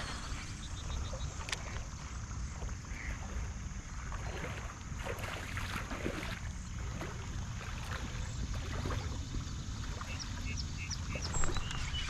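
Whopper Plopper topwater lure being reeled in across the river surface, its spinning tail plopping and churning the water in irregular bursts, over a steady low rumble.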